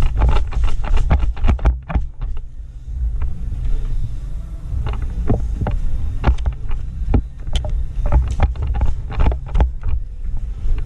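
Airsoft guns firing in scattered, irregular sharp cracks, thickest in the first two seconds and again from about five seconds in, over a steady low rumble on the body-worn camera's microphone.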